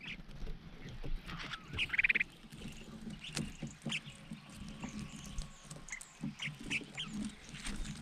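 Collared finchbills feeding at persimmons: scattered short calls, the loudest about two seconds in, over small clicks and rustles from the birds moving on the branches.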